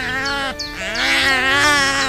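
Sheep bleating over background music with steady held notes. One quavering bleat ends about half a second in, and a second, longer one starts just under a second in.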